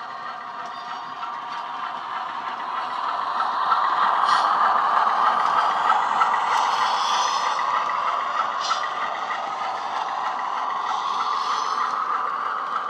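Class 47 diesel engine sound from the factory-fitted sound decoder of a Bachmann OO-gauge Class 47 model, played through its small on-board speaker. It grows louder as the locomotive passes close, about four to six seconds in, then eases off. Light regular clicking and rattling come from the model wagons running on the track.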